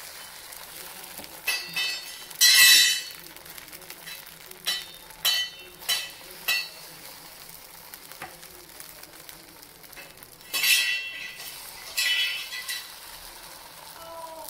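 Spoonfuls of paniyaram batter sizzling as they drop into hot ghee in the wells of a paniyaram pan. A short burst of sizzling comes with each one, about nine in all, over a low steady frying hiss.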